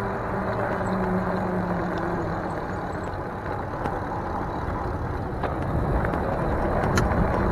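Wind rushing over the microphone and the fat tyres of a Mongoose Dolomite e-bike rolling on pavement while riding along, a steady rushing noise. A steady low hum runs through the first two seconds or so and then fades.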